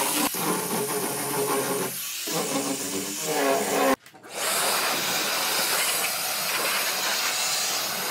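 Small handheld rotary sander with a round sanding pad running across pallet-wood planks, its motor whining over the rub of the pad, with a brief drop around two seconds in. After a sudden cut about four seconds in, a steady hiss from another power tool.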